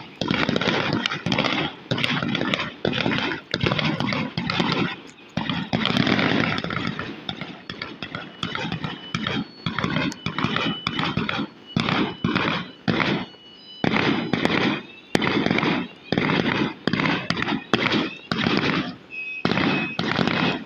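Fireworks going off in a rapid, unbroken series of bangs and crackles. An alarm's thin, steady high tone sounds faintly through them around the middle and again near the end.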